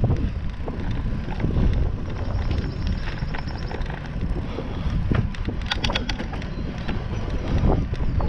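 Wind buffeting the microphone of a GoPro action camera on a moving bicycle, a steady low rumble with rolling tyre noise, and a quick cluster of sharp clicks or rattles a little past the middle.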